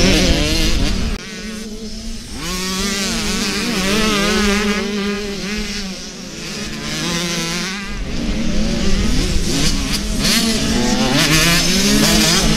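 Several motocross bikes' engines revving hard, their pitch rising and falling over and over as the riders accelerate and shift. There is a brief dip in level about a second in.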